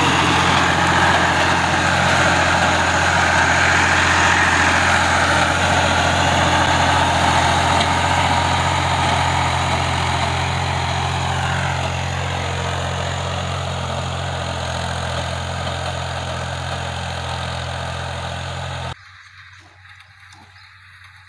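Farm tractor's diesel engine running steadily as it pulls a furrowing implement through tilled soil, slowly growing fainter as it moves off. About two seconds before the end it cuts off abruptly, leaving faint scraping of a hoe in dry soil.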